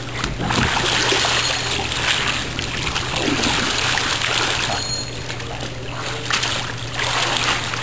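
Pool water splashing and trickling around a kayak and paddler, in surges that swell and fade several times.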